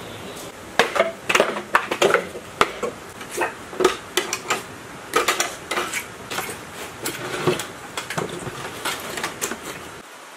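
Irregular metallic clanks and clicks as pliers and hands work on a rusty small diesel engine in its wooden crate, a couple of knocks a second, stopping near the end.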